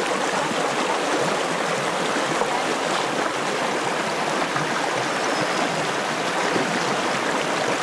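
Shallow, rocky river flowing steadily over stones, a constant, fairly loud rush of running water.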